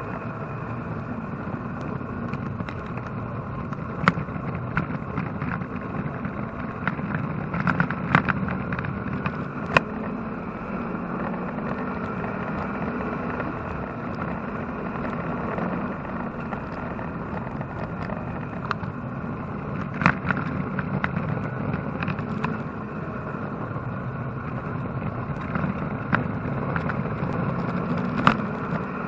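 Chevrolet-engined Porsche 944 race car running steadily on track, heard from inside the car. Sharp clicks or knocks come through now and then.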